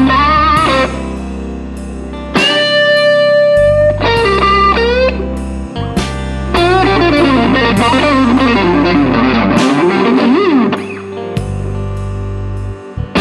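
Instrumental blues break: electric guitar playing held, bending lead notes over a steady bass line.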